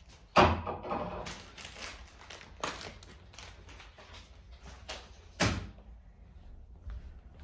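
Household handling noises: a sharp knock about half a second in, faint clicks and rustles, then a second short, sharp burst of sound about two seconds before the end.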